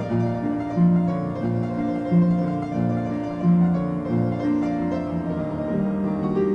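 Piano playing a traditional old-time song, chords over a bass line.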